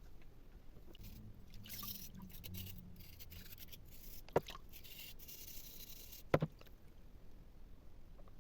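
Rubbing or scraping strokes against a hard surface, in short stretches over several seconds, with two sharp knocks about two seconds apart.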